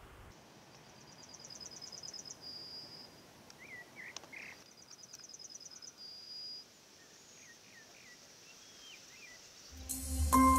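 Yellowhammer singing twice, each song a quick run of high repeated notes ending in one longer drawn-out note, with a few faint chirps from other birds in between. Electronic music starts near the end.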